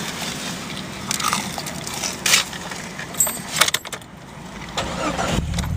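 Keys jangling with scattered clicks and rustles of handling inside a car, then a car engine starts running with a low steady hum near the end.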